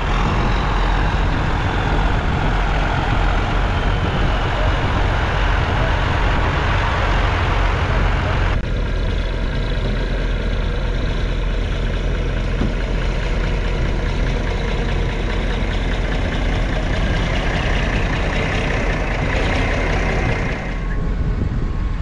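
Tractor engines running as tractors are driven up the deck of a low-loader trailer to be loaded. The engine sound is steady, with two abrupt changes, about eight and a half seconds in and near the end.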